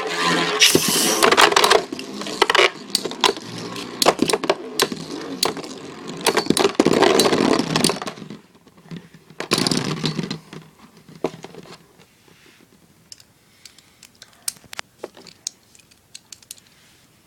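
Two metal-wheeled Beyblade spinning tops clashing and grinding against each other: a dense clatter of metallic clicks and scraping for about ten seconds, then thinning out to scattered sharp knocks.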